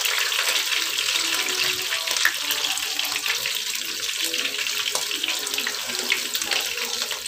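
Oil sizzling with a steady hiss and scattered crackles as small anchovy fritters (tortang dilis) shallow-fry in a nonstick pan.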